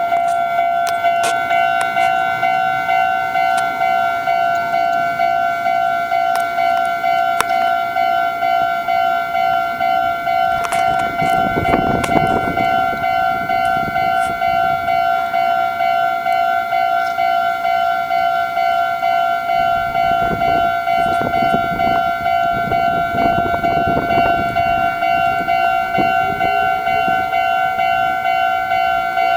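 Japanese level-crossing warning alarm ringing continuously in a fast, evenly repeating two-tone clang. A train's wheels and running gear rumble past about a third of the way in and again in the second half.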